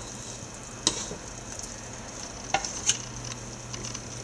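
Bacon strips sizzling in a nonstick frying pan, with a few sharp clicks of a spatula against the pan as the strips are turned over: one about a second in and two more close together near three seconds.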